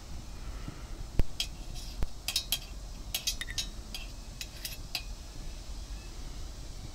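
Sharp metallic clinks and taps in quick clusters as a thin hooked rod knocks against an aluminium beer-can alcohol stove and a perforated stainless-steel holder. One sharp knock about a second in is the loudest; the clinking stops about five seconds in.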